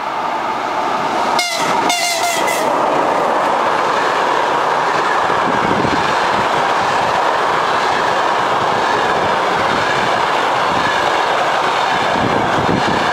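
EP2K electric locomotive's horn giving two short blasts as a greeting about a second and a half in, followed by the steady rush and wheel clatter of the express's passenger coaches passing at speed.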